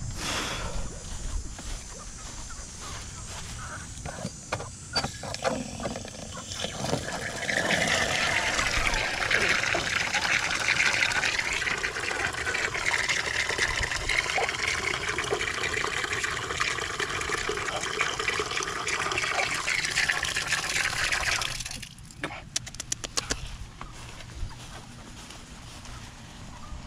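Water from a garden hose pouring into a dog's water bowl, filling it. It runs steadily for about fifteen seconds, then cuts off suddenly, and a few sharp clicks follow.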